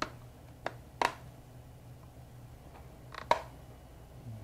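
Plastic snap clips of an HP Envy x360 laptop's top lid and screen assembly clicking into place as the lid edges are pressed down: several sharp clicks, two close together a little after three seconds. A faint steady hum runs underneath.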